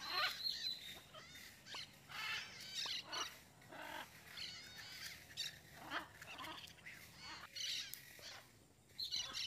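Birds calling: a string of short calls and chirps, about one every second.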